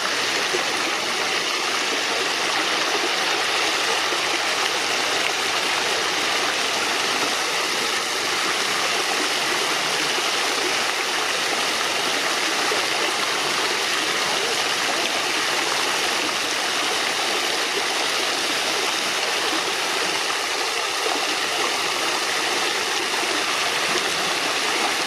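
Fountain water running and splashing in a steady, unbroken rush.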